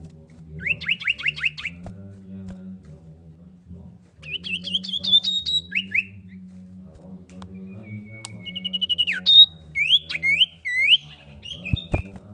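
Common iora (cipow) singing in separate bursts of quick whistled notes: a run of fast downslurred notes, then a rising series, then a long level whistle that breaks into a quick trill and several loud looping downslurs.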